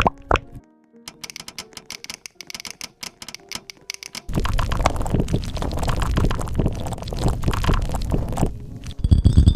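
Computer keyboard being typed on in rapid key clicks: quiet and sparse at first, then much louder and denser from about four seconds in.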